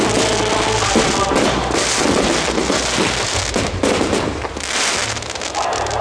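Aerial fireworks shells bursting and crackling in quick succession, with music playing alongside. The music's tones are clearest in the first second.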